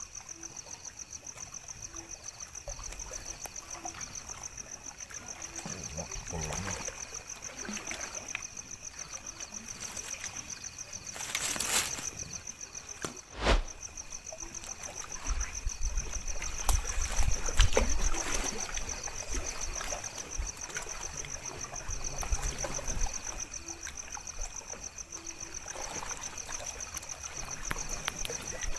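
Night ambience at a lake edge: insects trilling steadily in a high, rapid pulse, over water trickling and lapping. Scattered bumps break in, with a sharp knock about halfway through, a low rumble on the microphone for a few seconds after it, and a few sharp ticks near the end.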